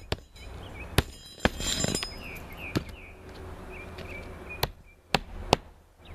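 Hammer driving roofing nails into a new asphalt shingle: about seven sharp knocks, irregularly spaced, with a short metallic ringing cluster about two seconds in.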